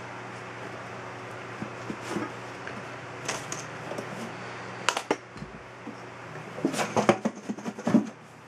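Paper-wrapped ammunition packets being pulled out of a cut-open metal surplus ammo tin: scattered knocks and clicks of the packets against the tin, bunching into a quick run of knocks near the end, over a low steady hum.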